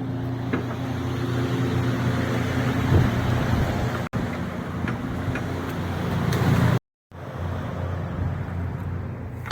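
Lumber dry kiln's machinery (heaters, fans, compressor) running with a steady hum, cutting out briefly twice.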